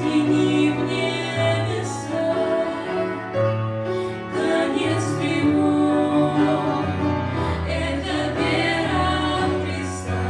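Music with choral singing, in long held notes that change every second or two.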